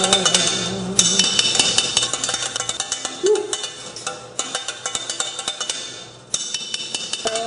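Metal spoon clanging and scraping fast around the inside of a steel stockpot, a dense run of metallic clinks that stops briefly a few times.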